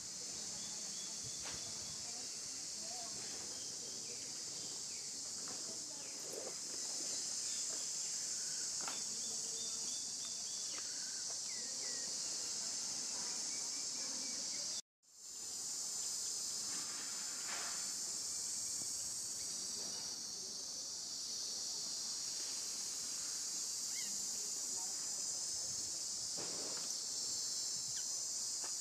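A steady, high-pitched chorus of insects droning without pause. It cuts out for an instant about halfway through.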